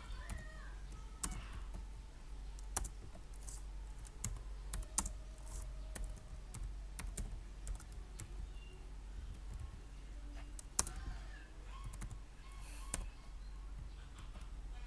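Typing on a computer keyboard: irregular keystrokes, a few of them sharper and louder than the rest, over a low steady hum.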